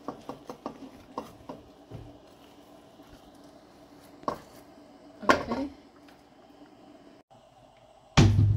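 Stainless steel ladle knocking and scraping against a ceramic plate and the rim of a metal pot as fish fillets are lifted from the broth. There are several light clinks at first, one a few seconds in, and a louder clatter a little past the middle, over a faint steady hum. A loud voice and music come in right at the end.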